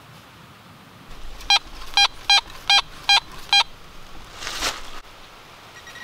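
Handheld pulse-induction pinpointer, the Fisher F-Pulse, beeping six short times, about two beeps a second, as it is passed over a clump of soil and roots: each beep means metal is close to its tip. A brief scratchy rustle of dirt follows after the beeps.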